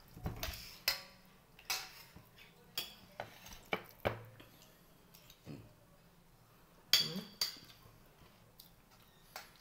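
Dishes, a stainless steel pot and spoons clinking and knocking as food is taken and handled at the table: irregular sharp knocks, the loudest about a second in and again near seven seconds in.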